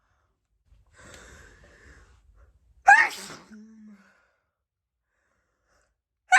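A woman sneezing: a breathy wind-up inhale, then a sharp, loud sneeze about three seconds in that trails off in a short falling voiced sound. A second sneeze bursts out right at the end.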